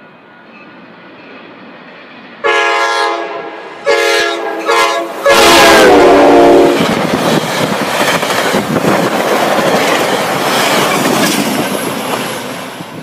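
Commuter train's air horn sounding four blasts as it approaches, the last one long and dropping in pitch as the train reaches the platform, then the loud rush and clickety-clack of the bilevel passenger cars speeding past.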